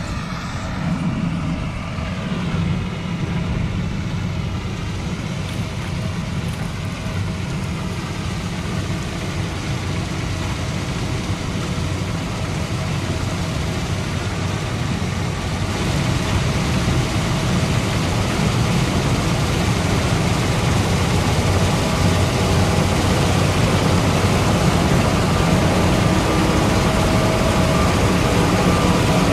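John Deere combine harvester running as it cuts and threshes grain, a steady engine and machinery drone that grows louder through the second half.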